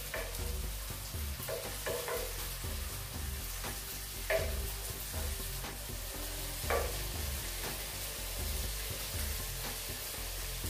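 A wooden spatula stirs and scrapes through a simmering creamy sauce in a nonstick pan over a steady sizzle. A few sharper scrapes stand out, the loudest about four seconds in and again near seven seconds.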